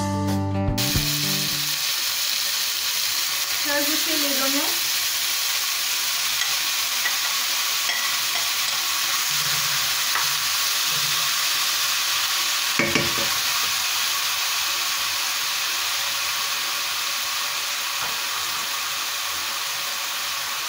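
Chicken legs searing in hot sunflower oil in a non-stick pan, with chopped onions added partway through and stirred with a wooden spoon: a steady sizzle. A short double knock about 13 seconds in.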